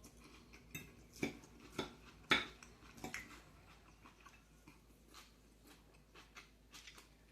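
Cutlery clicking and scraping against a plate or takeout container while eating: a few sharp clicks one to three seconds in, the loudest a little past two seconds, then fainter scattered clicks.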